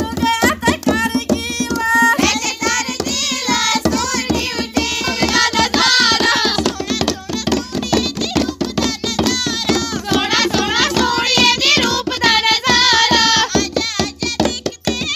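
Women singing together while beating tumbaknari, Kashmiri clay goblet drums, by hand in quick, steady strokes.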